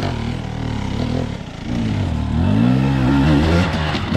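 Two-stroke enduro dirt bike engine revving in rising and falling surges on the throttle, with a longer climb and drop in pitch in the second half.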